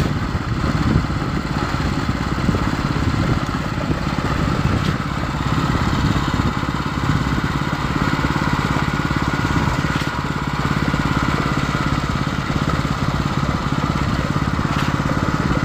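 Diesel engine of a concrete pump truck running steadily under load while concrete is pumped, an even low drone.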